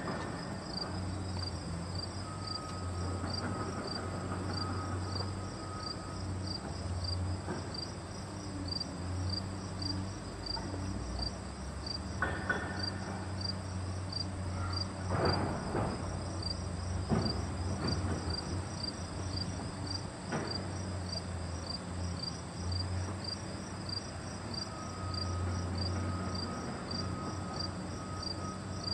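Crickets chirping in an even, fast, unbroken rhythm from the overgrown grass, over a low steady rumble, with a few brief knocks and rustles in the middle.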